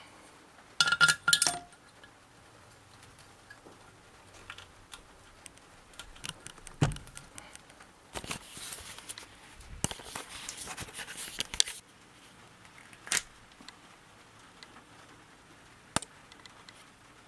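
Metal tools and engine parts being handled: a few ringing metallic clinks about a second in, a dull knock, several seconds of rattling and scraping, then two single clicks.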